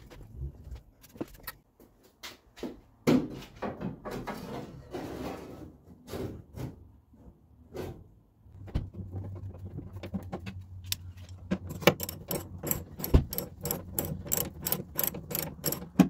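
Hand tools clinking and scraping against metal car fittings. Near the end comes a quick, even run of clicks, about four a second, from a socket ratchet turning a bolt.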